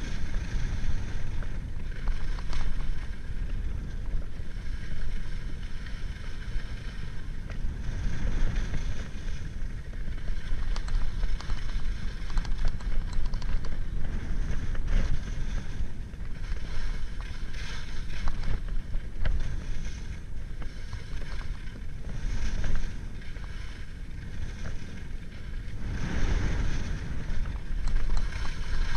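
Wind rushing over a GoPro's microphone at downhill skiing speed, a steady low rumble, with skis hissing and scraping over packed snow. The scraping swells and fades with each turn.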